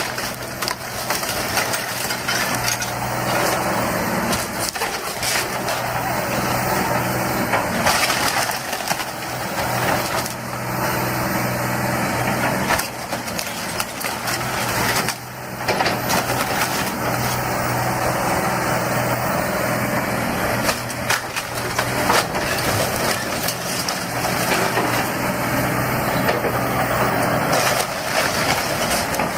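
A heavy machine's diesel engine runs steadily under continuous crunching and cracking as material is crushed and broken, as in excavator demolition.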